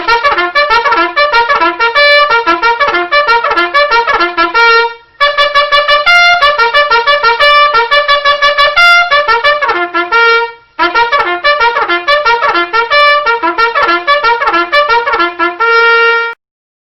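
Music: a fast tune of rapid, short pitched notes in three phrases separated by brief breaks. It cuts off abruptly shortly before the end.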